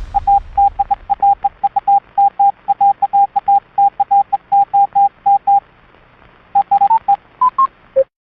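Morse code sent as a steady-pitched electronic beep, a run of short dots and longer dashes lasting about five and a half seconds. After a pause, a few short beeps climb in pitch and one lower beep closes.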